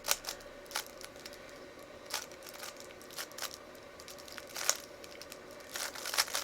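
3x3 Rubik's Cube being turned by hand during a layer-by-layer solve: short plastic clicks as the layers snap round, irregularly spaced, with a quicker flurry of turns near the end.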